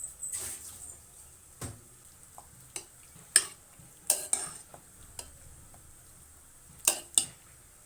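A spoon stirring gongura leaves cooking in a pot, with scattered knocks and short scrapes against the pot. The sharpest knock comes about three and a half seconds in, and two quick knocks come near the end.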